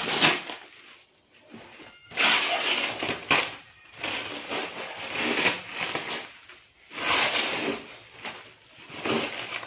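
Clear plastic wrapping crinkling and rustling as it is pulled off a parcel by hand, in several irregular bursts with short pauses between.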